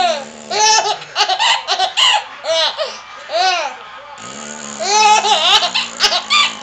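Baby laughing hard in repeated high-pitched bursts at a man's fake fart noises, which come as a low buzzing blast right at the start and a longer one about four seconds in.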